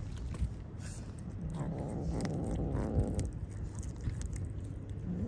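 Kitten making a low rumbling purr, thickening into a rougher rumble for about a second and a half in the middle, with faint clicks throughout.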